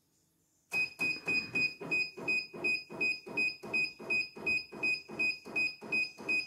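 CNY portable computerized embroidery machine starting to stitch about three-quarters of a second in, then running at an even rhythm of about four stitch beats a second, each beat with a short high tone. It runs a little loud, which the repairer puts down to the presser foot being tied up rather than replaced.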